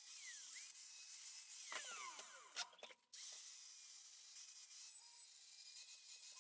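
Angle grinder with a flap disc smoothing the edge of a cut-out stainless steel disc: a steady high whine with grinding hiss. About two seconds in the whine falls in pitch as the grinder winds down, then the sound breaks off briefly before the grinding resumes.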